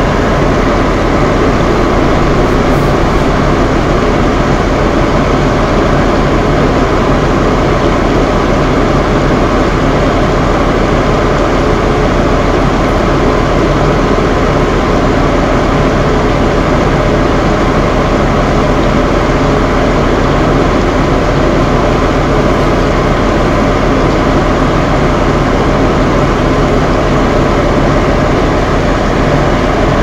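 Two electric bathroom fan heaters running together, a steady whirring rush with a low motor hum, mixed with the even hiss of falling rain.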